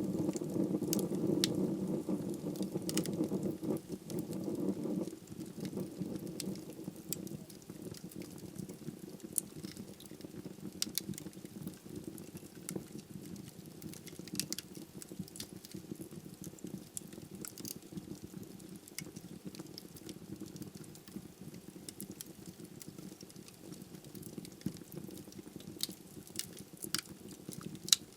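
Log fire burning in a fireplace: a steady low rush of flames with sharp crackles and pops scattered through it. The rush is louder for the first five seconds, then drops.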